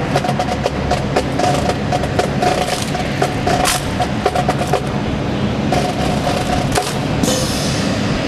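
Rifle drill team handling rifles in unison: a run of sharp wooden clacks from hands slapping rifles and butts striking the tarmac, over a steady low hum. A brief rustling hiss comes near the end as the ranks drop to one knee.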